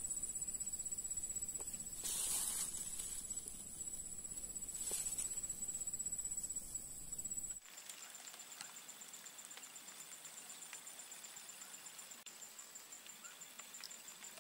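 Quiet swamp ambience: a thin, high insect trill over faint background noise, with two brief soft rustles in the first half. The low background noise drops away a little past halfway, leaving the trill pulsing rapidly.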